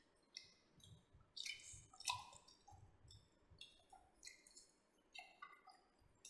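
Faint wet mouth sounds of people chewing roasted pork by hand: scattered small clicks and lip smacks.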